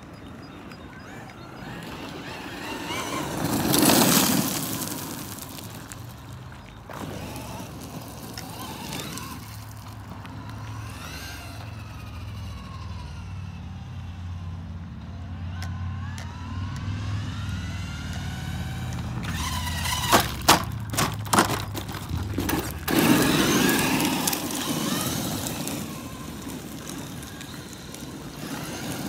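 Thunder Tiger e-MTA electric RC monster truck driving on loose gravel. Its motor whine rises and falls as it speeds up and slows. Its tyres crunch over the stones, loudest as it passes close about four seconds in and again near the end, with a quick run of sharp knocks shortly before the second pass.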